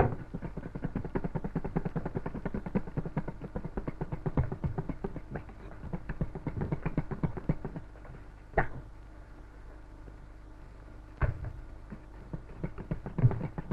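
Hand whisk beating cream in a metal bowl: rapid, even strokes that pause about two-thirds of the way through, with two sharp knocks, then start again near the end. The cream is being whipped into crema chantilly, beaten until it holds peaks.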